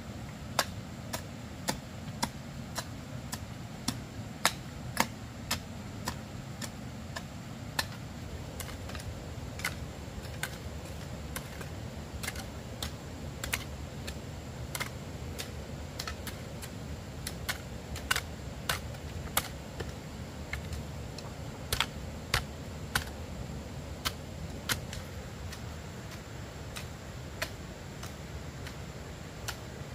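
Irregular sharp taps, roughly one or two a second, over a steady low rumble.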